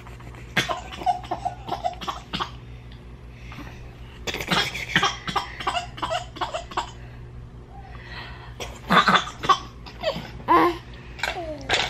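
A woman and a baby laughing in three bursts of quick, repeated laughter during tickling play.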